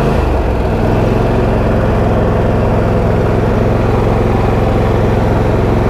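Husqvarna YTA22V46 lawn tractor's 22-horsepower V-twin engine running steadily while the tractor stands still, moments after being started. Its low tone shifts slightly about half a second in, then holds even.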